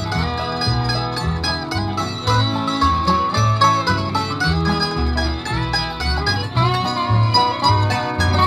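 Country string band playing an instrumental passage: banjo and guitar picking over a bass line that alternates notes on the beat.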